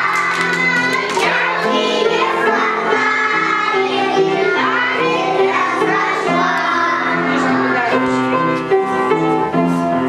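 Young children singing a song together over a steady instrumental accompaniment.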